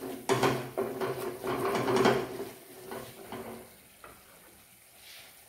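Wooden spatula stirring and scraping thick gravy around a steel kadai, with light knocks against the pan. The stirring fades out about three and a half seconds in.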